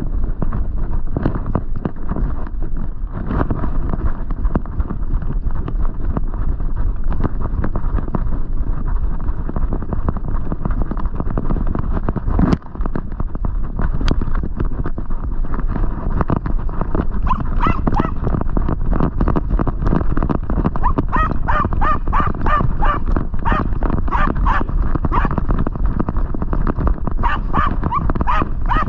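Hunting terrier running through dry leaf litter, its paws and the jostled body camera making a constant rustle and patter. From about halfway it is joined by a terrier barking high and fast, about three barks a second, in runs that break off and start again near the end.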